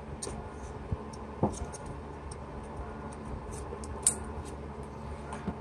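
Small clicks and rattles of a plastic wideband O2 sensor wiring connector being handled and pushed together, with a sharper click about four seconds in as it snaps home. A faint steady hum underneath.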